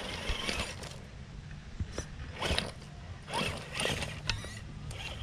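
Traxxas TRX-4 RC crawler's electric motor and geared drivetrain whirring in short, uneven bursts as it climbs over rocks, one burst rising in pitch, with scattered clicks and scrapes.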